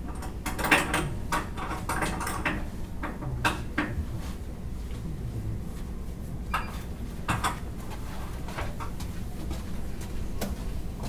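Irregular clinks and knocks of metal parts and tools being handled during assembly of an aluminium extrusion frame, over a steady low room hum.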